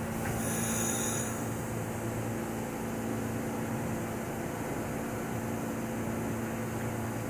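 A parked R46 subway car standing with its doors open, its air conditioning and onboard equipment giving a steady hum with a low drone.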